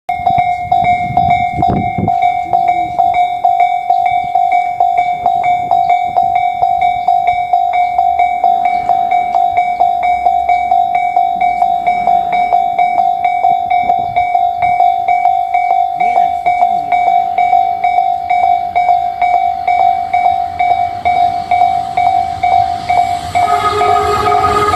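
Japanese level-crossing warning bell ringing in a rapid, steady train of electronic strikes. Near the end a train horn sounds and the noise of the approaching train rises under the bell.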